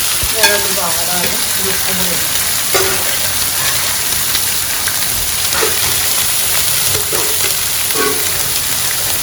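Chopped shallots, garlic, ginger and curry leaves sizzling steadily in hot oil in an uruli, stirred now and then while they fry down to wilt.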